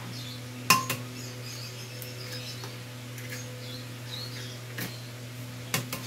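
Eggs being cracked on the rim of a glass blender jar: a few sharp clinks and taps of shell on glass, the loudest about a second in and two more close together near the end, over a steady low hum.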